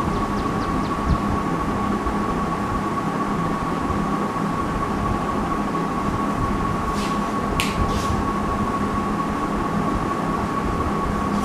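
Steady mechanical background hum with a constant high-pitched whine and a low drone. Faint marker squeaks on a whiteboard come in the first second, and a few short clicks come about seven to eight seconds in.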